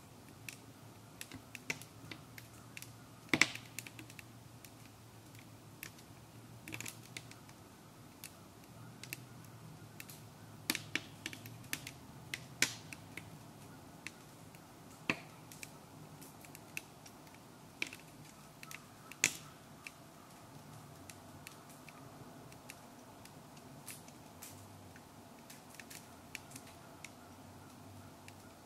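Wood fire crackling in a small sap-boiling stove: irregular sharp pops and snaps, scattered and uneven, two of them much louder than the rest, about three seconds in and about two-thirds of the way through. A faint low steady hum runs underneath.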